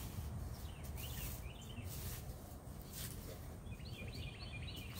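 Small songbirds chirping in two short bouts, one about a second in and one near the end, over a steady low outdoor rumble, with scattered sharp crackles or knocks between them.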